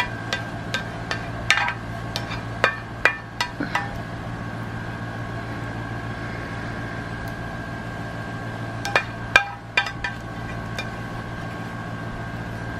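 Sharp clinks and taps of metal kitchenware, a run of them over the first few seconds and a few more about nine seconds in, over a steady appliance hum with a faint high whine.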